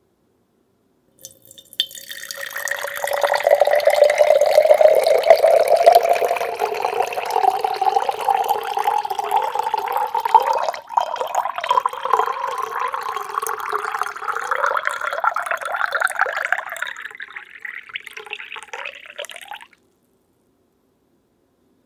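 Water poured in a steady stream into a large glass jar, the pitch of the filling sound rising as the jar fills. The pour starts about a second in, falters briefly about halfway, and stops near the end.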